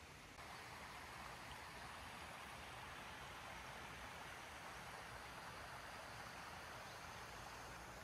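Faint, steady rush of flowing water, getting a little louder about half a second in.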